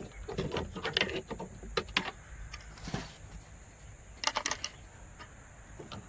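Small hard clicks and taps of a plastic bait boat's hull and its fittings being handled and opened, with a quick rattle of clicks about four seconds in.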